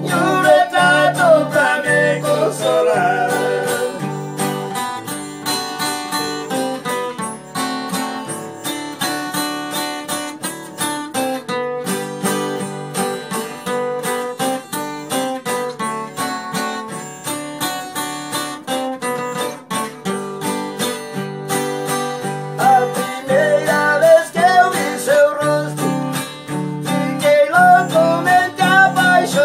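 Two acoustic guitars strummed together at a steady rhythm. A man's singing voice carries over them for the first few seconds, drops out for a guitar-only passage, and comes back about two-thirds of the way through.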